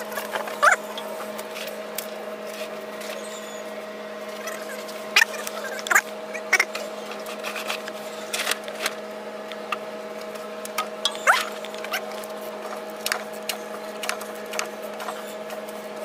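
Sped-up sound of hand-tool work on a truck diesel engine: scattered sharp clicks and knocks with short chirping squeaks, over a steady hum.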